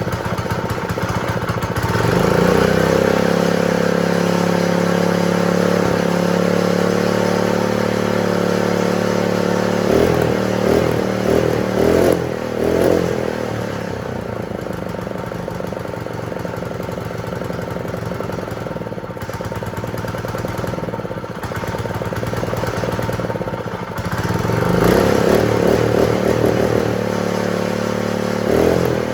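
Honda GX120 single-cylinder four-stroke small engine running steadily after being started. It speeds up about two seconds in, changes speed quickly a few times around the middle, settles at a lower speed, then speeds up again near the end as the newly fixed throttle lever is worked.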